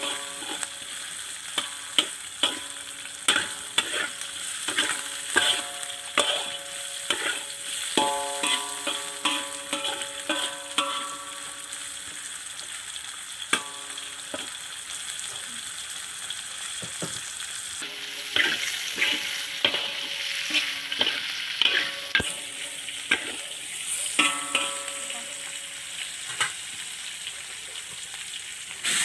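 A metal spatula stirring and repeatedly knocking against a metal cooking pan, each strike ringing briefly, over a steady sizzle of food frying in the pan.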